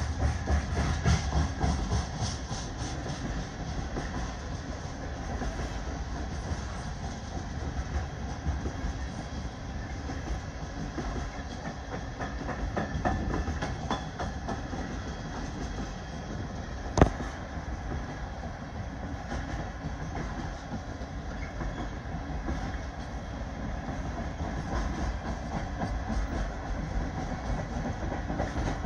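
Freight train of Tropicana refrigerated boxcars rolling steadily past, with wheels rumbling and clicking over the rail joints. A single sharp bang comes a little past halfway.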